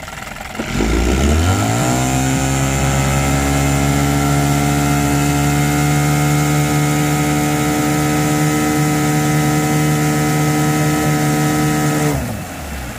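10 hp Evinrude two-stroke outboard motor, running with its cover off, is throttled up from idle about a second in; its pitch rises quickly and then holds steady at high speed. About twelve seconds in it is throttled back and the pitch drops abruptly.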